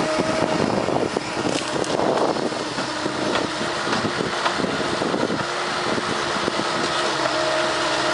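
Bobcat S185 skid steer's diesel engine running steadily under load while its hydraulic Brushshark shear cuts and pushes cedar brush, with frequent short cracks and snaps of wood through the running.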